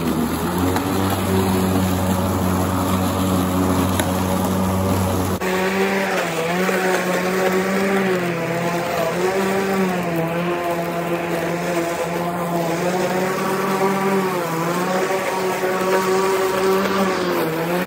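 Ryobi battery-powered electric lawn mower running while cutting grass: a steady motor-and-blade hum that dips briefly in pitch several times. The sound changes abruptly about five seconds in, the lowest hum dropping away.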